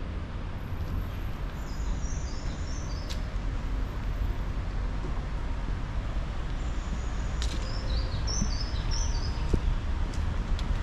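Birds chirping in two short runs of high stepped notes, a few seconds apart, over a steady low rumble of outdoor background noise, with a few sharp clicks.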